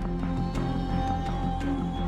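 Background music with a steady beat, a repeating low bass pattern and percussion hits.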